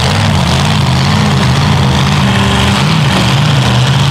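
Mega truck engine running at low speed with the throttle blipped, its pitch swelling and dropping back repeatedly.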